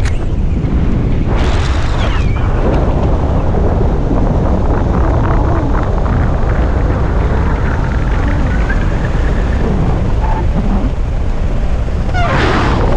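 Wind buffeting the microphone of a skydiver's camera in flight under an open parachute canopy, a loud steady rumble with two louder gusts, about a second in and near the end.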